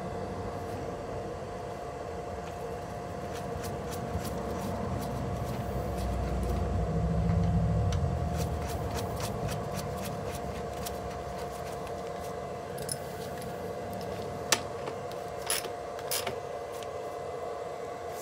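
Hand-work on the scooter's front axle as the nut is threaded on: handling noise and a low rumble that swells and dies away in the middle. Scattered sharp metal clicks and clinks come in the second half, over a steady background hum.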